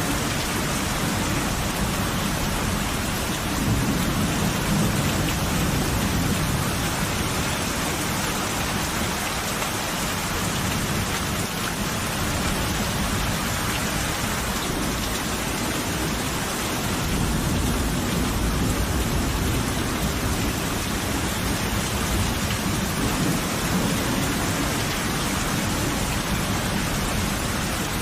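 Steady heavy rain falling, with thunder rumbling low in the background, swelling a few seconds in and again in the second half.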